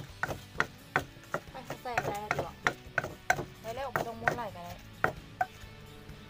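Wooden pestle pounding food in a mortar: repeated thuds about three a second, stopping shortly before the end.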